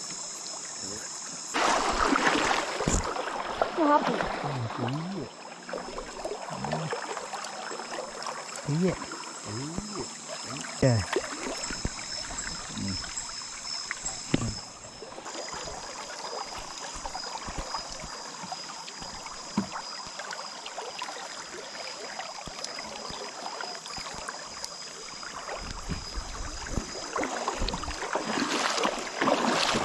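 Water splashing and dripping as a wet fishing net is hauled and handled, with scattered small knocks, louder in the first few seconds. A steady high-pitched drone runs underneath.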